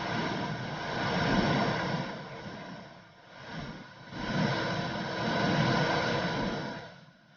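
Womb sound for soothing a baby to sleep: a muffled whooshing rush that swells and fades in slow waves, dipping about three seconds in and again at the end.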